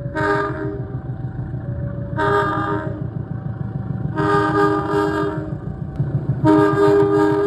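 Indonesian locomotive's horn sounding the Semboyan 35 horn signal: four blasts, each longer than the last, the fourth still sounding at the end, over a steady low rumble of the train.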